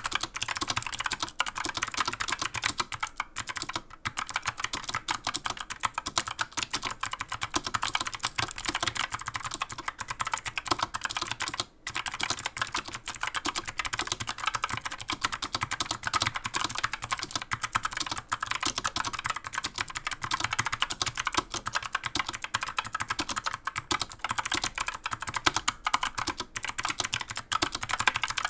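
Epomaker AK61 mechanical keyboard being typed on in a rapid, continuous stream of clicks from its clicky Gateron Optical Blue switches. The stabilizers are only lightly lubed, leaving a little rattle, mostly in the space bar. The typing breaks off for a moment about twelve seconds in.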